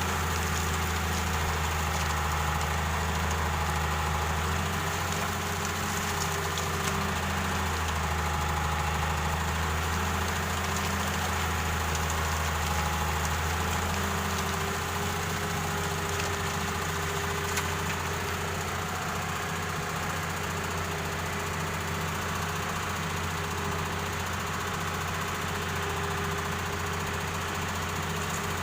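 An excavator's diesel engine running steadily while loading sand, a continuous low engine note that eases slightly about halfway through.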